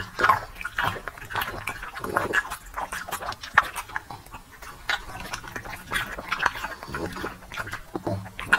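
Bully-breed dog eating blueberries from a hand, with irregular wet chewing, lip-smacking and snuffling mouth noises.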